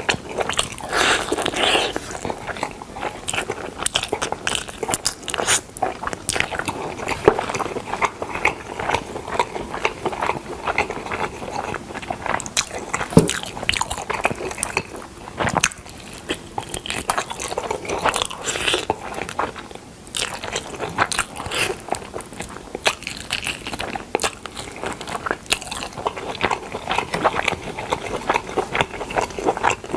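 A person chewing and biting into smoked chicken close to the microphone: dense, irregular wet mouth clicks and smacks of eating.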